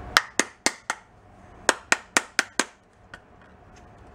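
Screwdriver handle rapping on an amber plastic turn-signal lamp housing to crack it apart: four sharp taps, a short pause, then five more.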